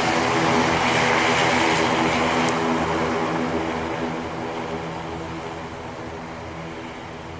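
Twin jet engines of an Airbus A330-200 airliner running loud and steady, with a hum of engine tones under a broad rush, then fading from about three seconds in as the aircraft moves away.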